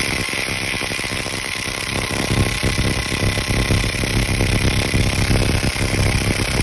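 DeWalt DCF850 Atomic 1/4-inch cordless impact driver hammering on a CV axle nut through a socket: a steady, rapid rattle of impacts that does not stop, growing a little louder about two seconds in.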